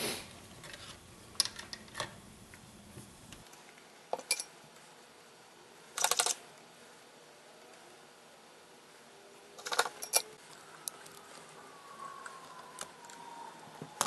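Sparse light clicks and knocks of small parts, wire and tools being handled on a workbench and a wooden base while a circuit board is wired and soldered, with louder knocks about six and ten seconds in. A faint, slowly falling tone sounds in the last few seconds.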